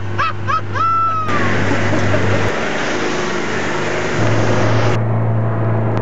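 A few high, gliding whoops in the first second, then a moving vehicle heard from inside its cabin: rough road and wind noise over a low engine hum. The noise eases about five seconds in.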